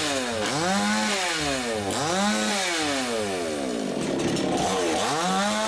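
Two-stroke petrol chainsaw cutting through cardboard biscuit boxes, its engine revving up and dropping back twice. About four seconds in it falls low, then climbs and holds at a steady high speed.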